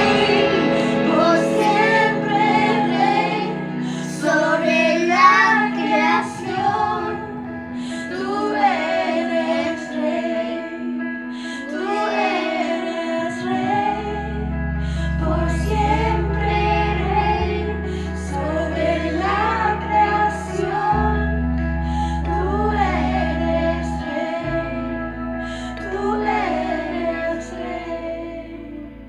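A young child singing a worship song over backing music of long held low chords, which fade near the end.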